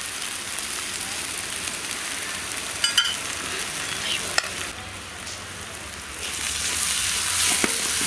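Tomato-onion masala sizzling in an aluminium kadai, cooked down nearly dry, while a wooden spatula stirs and scrapes it. A couple of sharp knocks come about three seconds in, and the sizzle grows louder from about six seconds in.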